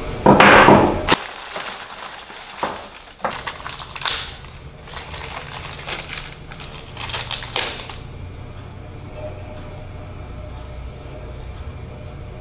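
Small steel bicycle frame lugs handled by hand and unwrapped from plastic bags: plastic crinkling and irregular light clicks of metal parts, with a brief loud burst about half a second in. After about eight seconds the handling goes quieter over a steady low hum.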